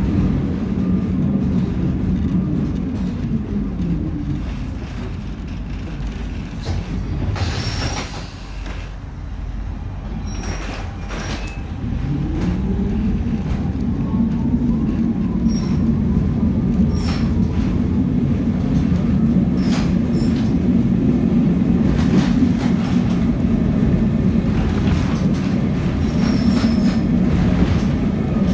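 Carris route 15E tram under way. Its traction motor hum falls in pitch as it slows, and a short hiss comes about 7.5 s in during a quieter spell. The motor tone then rises again about 12 s in as the tram picks up speed and runs steadily, with wheel clicks over the rails.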